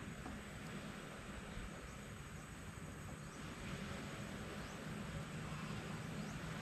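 Faint insects calling over a steady, quiet background hiss, with a low steady hum underneath.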